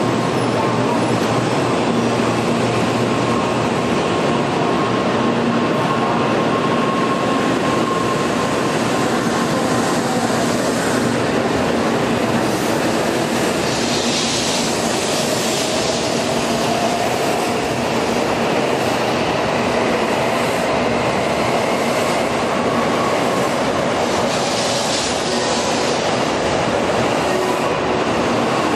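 N700-series Shinkansen train pulling out of the platform and picking up speed as its cars slide past, a steady rush of train noise with a faint whine rising in pitch around the middle.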